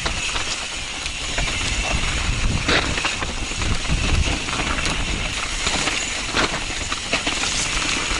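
Mountain bike descending a dirt singletrack: wind rushing over the mounted camera's microphone with rumbling tyre and trail noise, and a few sharp knocks and rattles from the bike over bumps.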